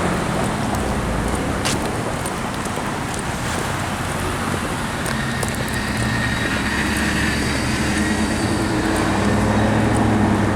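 Road traffic in a slow-moving jam: car engines running with a steady low hum under a constant wash of traffic noise, and a single sharp click about two seconds in.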